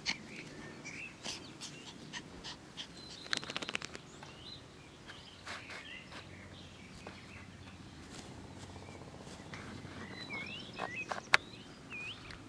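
Small birds chirping in short, rising and falling calls over a faint steady background hum, with a quick rattle of clicks a little over three seconds in and a single sharp click near the end.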